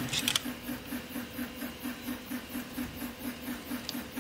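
A plastic one-handed bar clamp being handled and released: a sharp click at the start, a few smaller clicks just after, and a faint click near the end. Under it, a faint steady pulsing machine noise at about five beats a second.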